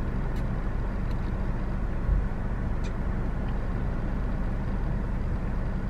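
Steady low hum of a car's idling engine heard from inside the cabin, with a soft bump about two seconds in.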